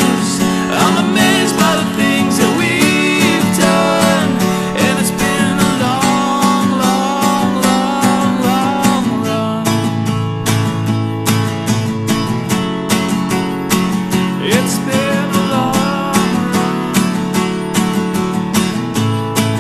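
Instrumental break of an indie country-shoegaze song: strummed acoustic guitar keeping a steady rhythm under a sliding lead melody line, with no singing.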